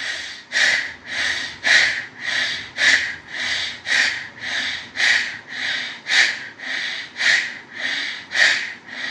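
Bhastrika pranayama: a man breathing hard in and out through his right nostril like a bellows, about two forceful breath strokes a second in an even rhythm.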